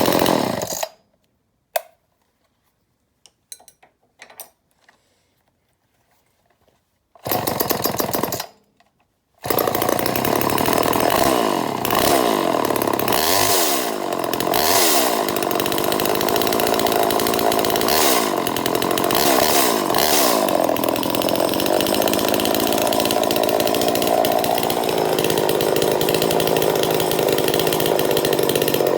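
Homelite Super XL Automatic two-stroke chainsaw engine running, then cutting out about a second in. After a few quiet seconds with small clicks it fires, runs briefly and stops, then starts again and keeps running. It is revved up and down several times before settling into a steady run.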